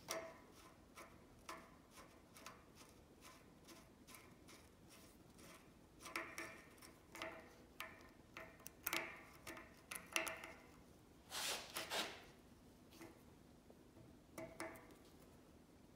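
Light metal-on-metal clicks and scrapes of a thin steel pick working against the knurled worm screw of a Bahco adjustable wrench: irregular small ticks, some ringing briefly, with a longer scrape a little past the middle.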